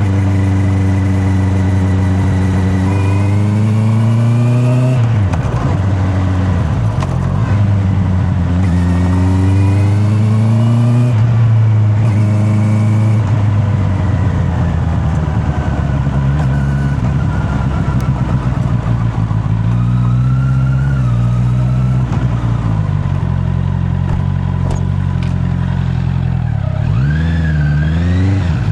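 Honda CB650R's inline-four engine under way. The revs climb twice, about three and nine seconds in, each time dropping sharply as the rider shifts up, then settle into a steady cruise with small rises and falls in pitch.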